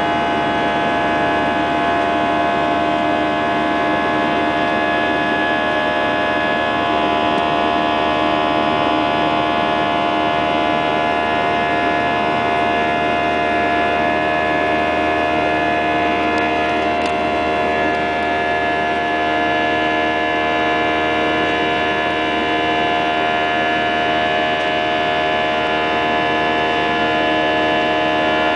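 Airbus A320 cabin noise: the jet engines running steadily, a constant drone of many held tones over a rushing noise.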